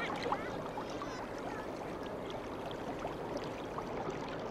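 Steady rush of flowing river water, with a few faint high chirps in the first second.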